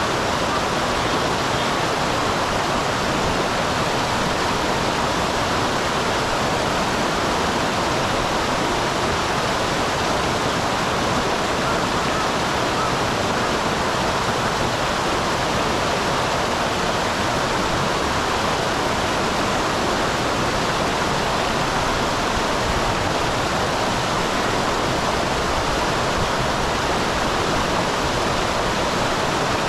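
Mountain stream spilling over a small waterfall: a steady, even rush of falling and running water.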